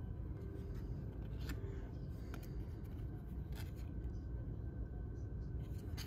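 Trading cards being flipped through in the hand, with a few soft clicks and rustles of card sliding against card over a steady low hum.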